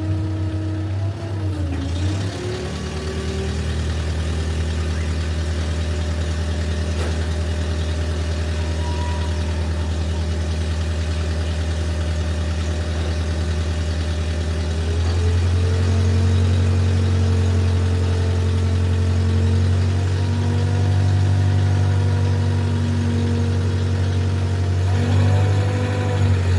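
Excavator's diesel engine running steadily with a deep hum, growing louder about halfway through.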